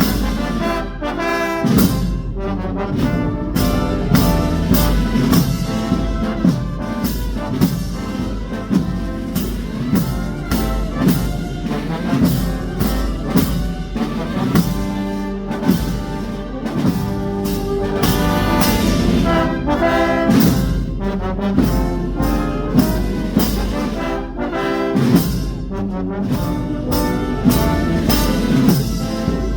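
Spanish Holy Week marching band (banda de música) playing a slow processional march: trumpets and trombones carry the melody over a steady drumbeat.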